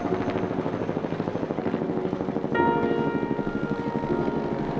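Helicopter overhead, its rotor chopping rapidly and steadily. From about halfway through, a held musical chord sounds over it for a couple of seconds.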